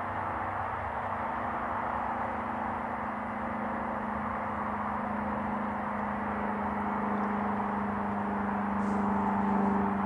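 Claas Lexion 750 combine harvester working in maize: a steady engine and machinery hum over a rushing noise, growing slightly louder near the end.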